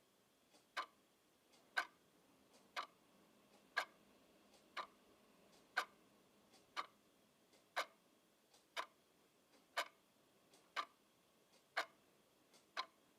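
Wall clock ticking steadily, one sharp tick about every second, each with a faint lighter click just before it.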